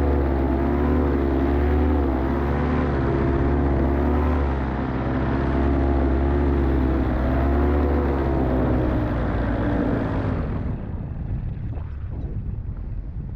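Light aircraft's propeller engine running with a wavering, unsteady pitch, then cutting out about ten seconds in, leaving only wind rush: the engine, which had been running rough, dies in flight.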